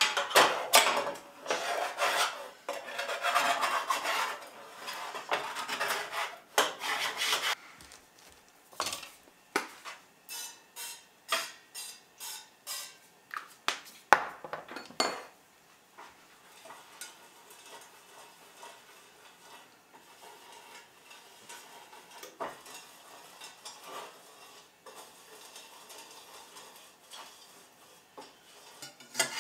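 A utensil scraping stuck-on baked egg out of a metal muffin top tin, which was not greased enough: rough scraping strokes for about seven seconds, then a run of light taps and clinks on the pan. Quieter, softer rubbing follows in the second half.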